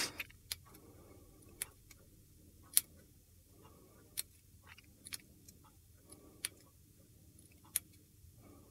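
Small craft scissors snipping notches into a punched paper border strip: about ten short, sharp snips at irregular intervals, the loudest nearly three seconds in.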